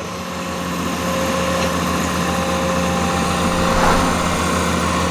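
Excavator's diesel engine running steadily, a constant drone that grows a little louder over the first second.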